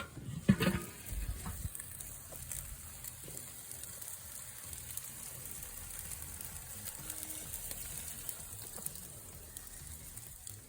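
Sauced chicken wings sizzling and crackling faintly over charcoal in a Weber kettle grill. There are a couple of low knocks in the first second.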